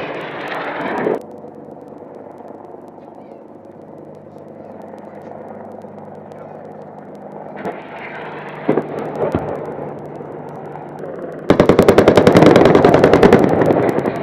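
Helicopter running with a steady hum, then near the end a loud, rapid burst of automatic cannon fire lasting almost three seconds, typical of an Apache's 30 mm chain gun.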